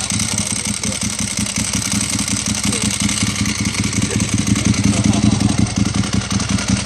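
Ducati 1098S's L-twin engine idling steadily with an even, fast lumpy pulse, over the rattle of its dry clutch.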